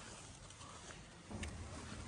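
Faint ambience of a large church interior with visitors moving about: a low steady hush with a few soft scattered clicks of footsteps, and a brief louder low rumble about one and a half seconds in.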